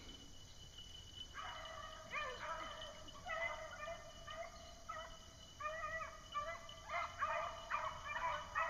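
Pack of beagles baying in the distance as they run a rabbit's trail, several voices overlapping, coming in about a second and a half in and growing fuller. The steady cry is the sign the pack is on the rabbit.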